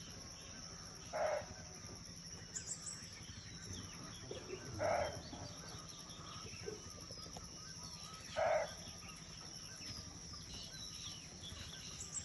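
A deer calling: three short, loud calls evenly spaced about three and a half seconds apart, over a steady high-pitched drone.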